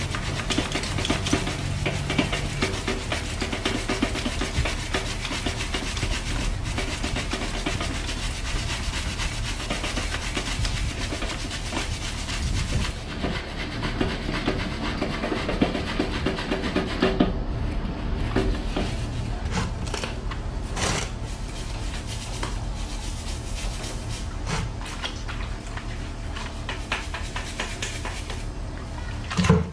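A stiff brush scrubbing a wet bicycle rear cassette and derailleur: fast, steady scratching that thins out to separate strokes a little past halfway. A single knock comes just before the end.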